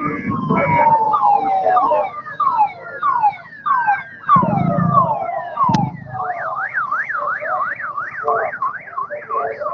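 Police patrol car siren sounding in quick falling sweeps, switching about six seconds in to a fast rising-and-falling warble. Under it, the engine noise of passing motorcycles swells twice.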